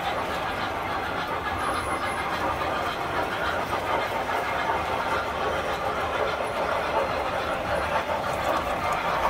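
Tinplate model trains running on three-rail steel track: a steady running noise of metal wheels and motors on the rails.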